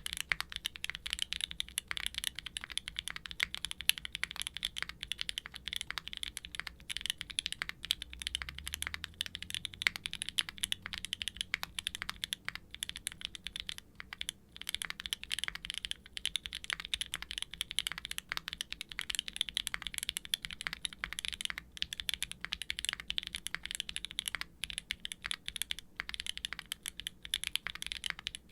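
Continuous fast typing on a Qwertykeys Neo65 aluminium mechanical keyboard with a carbon fibre plate, Gateron Green Tea Pro tactile switches and GMK doubleshot ABS keycaps: a rapid run of quiet, crisp clacks with no foam dampening.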